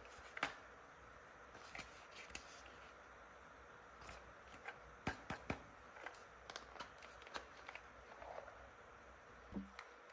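Small plastic toy pieces and packaging being handled: scattered light clicks and taps at an irregular pace, the sharpest just after the start and a run of them in the middle.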